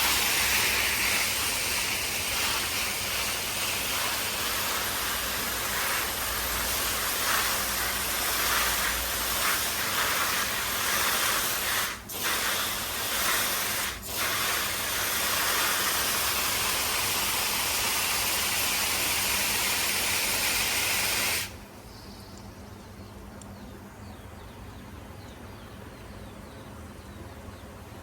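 Garden hose spraying water through a nozzle in a steady hiss, cut off briefly twice around the middle, then shut off about three-quarters of the way through.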